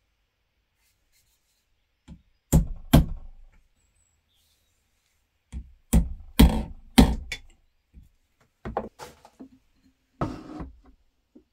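A series of sharp knocks and taps. There are two hard knocks, then a quick run of four, then two more, and a short scraping rustle near the end.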